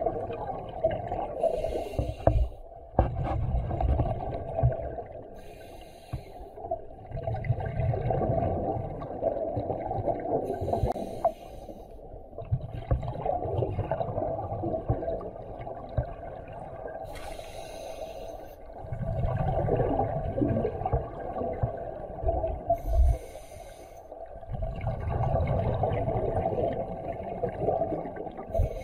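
Scuba diver breathing underwater through a regulator: a short hiss as he inhales, then a low rumbling burst of exhaled bubbles, repeating about every five seconds.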